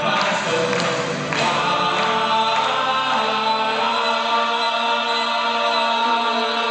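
Live choir with rock band and orchestra performing an orchestral rock arrangement. Percussion hits stop about a second and a half in, leaving voices and instruments holding long sustained notes.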